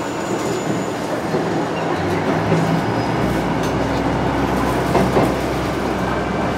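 KiHa 110 diesel railcar running along the line, heard from inside the car: steady wheel-on-rail running noise with some clickety-clack over the rail joints. A low drone sets in about halfway through.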